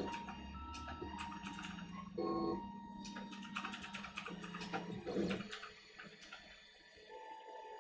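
Desktop FDM 3D printer at work: its stepper motors whine at shifting pitches as the print head and bed move back and forth, with quick ticking clicks. It grows quieter for the last couple of seconds.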